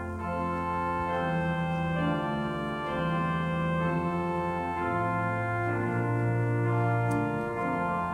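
Church organ playing sustained hymn chords that change every second or so over a held bass note, which steps up about five seconds in.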